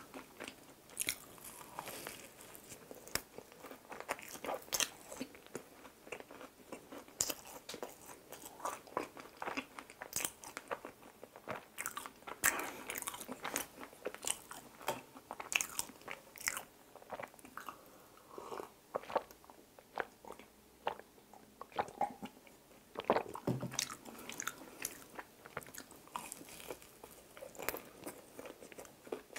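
A person biting into and chewing a Krispy Kreme caramel waffle doughnut topped with chopped almonds, an unbroken run of small irregular crunches and mouth clicks.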